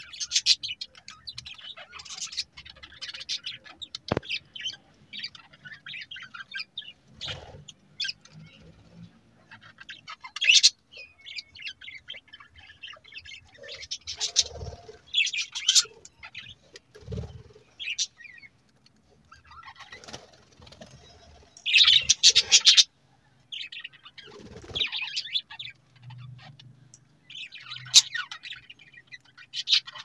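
A flock of budgerigars chirping and chattering, a steady scatter of short high chirps with louder flurries every few seconds.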